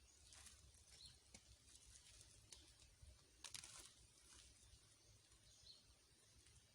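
Near silence: faint outdoor ambience with a low steady hum, scattered small clicks, and a brief rustle about three and a half seconds in.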